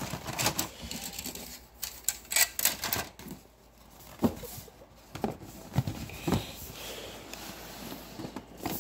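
Hard plastic miniature sprues and terrain frames clicking and clattering against each other as they are stacked back into a cardboard box. A few duller knocks come in the second half.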